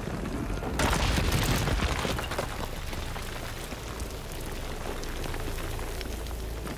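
Film sound effects of a stone fountain collapsing and erupting: a sudden explosive rush about a second in, easing into a steady low rumble as spray rises.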